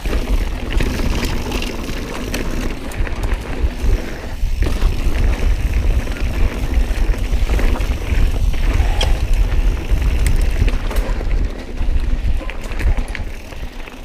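Mountain bike riding over a rocky trail: tyres rumbling on rock and dirt, with the bike rattling in many quick clicks and knocks, and wind rumbling on the camera microphone.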